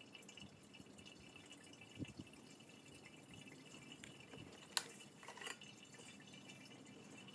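Near silence: faint room tone with a few soft, short clicks, the sharpest about five seconds in.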